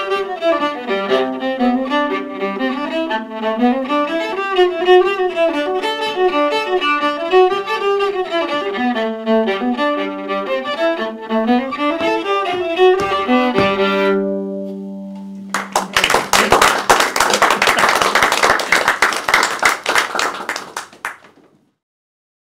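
Solo viola playing a lively folk tune, with a steady low drone note under the melody, ending on a long held note about fourteen seconds in. An audience then applauds for about five seconds before the sound cuts off.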